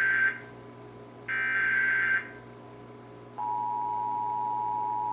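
Emergency Alert System SAME header: the end of one data burst, then a second harsh, buzzing data burst about a second long. About three and a half seconds in, the steady two-tone EAS attention signal (853 and 960 Hz) starts, the lead-in to a flash flood warning.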